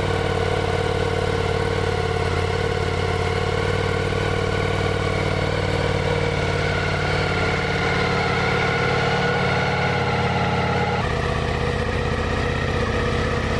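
Ducati Diavel for Bentley's V4 engine idling steadily, freshly started on a brand-new bike just out of its crate. The tone shifts slightly about eleven seconds in.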